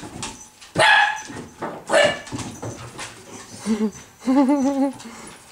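A kelpie and a puppy at rough play: two sharp barks about a second apart, then a short whine and a longer wavering whine near the end.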